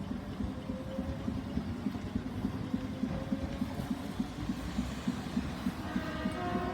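A train's engine running with a steady low throb, pulsing about four to five times a second. Near the end comes a brief high tone with overtones.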